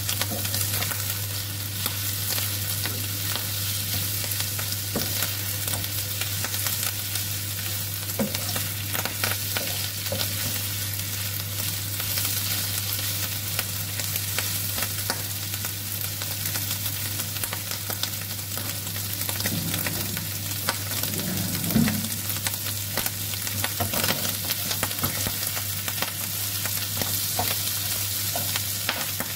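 Strips of turkey breast sizzling and crackling in a little hot oil in a nonstick frying pan, stirred and turned with a wooden spatula and a fork that scrape and tap against the pan, with one louder clatter about two-thirds of the way through.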